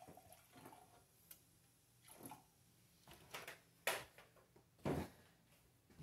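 Milk poured from a plastic jug into a stainless steel steaming pitcher, faint and splashy, with a few light clicks and a knock near the end as things are handled on the counter.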